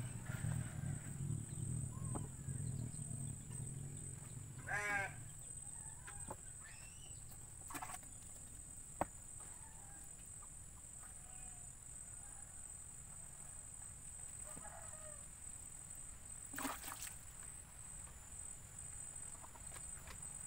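Faint outdoor background with a steady high-pitched whine, a farm animal's call about five seconds in, and a few light knocks as the sugar moulds are handled.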